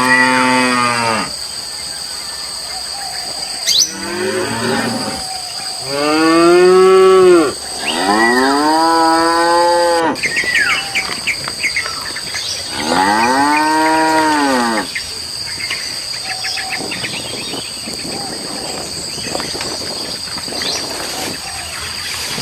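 Cattle mooing: five long, drawn-out moos, each rising and then falling in pitch, the loudest about a third of the way in. A steady high-pitched whine runs underneath throughout.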